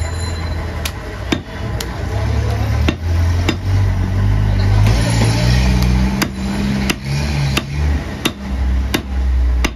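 A butcher's cleaver chopping through goat ribs on a wooden chopping block: about ten sharp chops, irregularly spaced, with a pause in the middle. A steady low rumble runs underneath.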